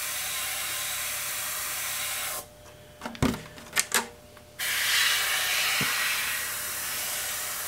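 Airbrush spraying with a steady hiss that stops for about two seconds midway, with a couple of light taps in the pause, then starts again.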